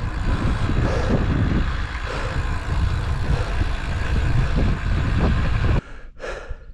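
Wind buffeting the action camera's microphone as a bicycle is ridden along the road, a loud rumble heaviest in the low end that cuts off suddenly near the end.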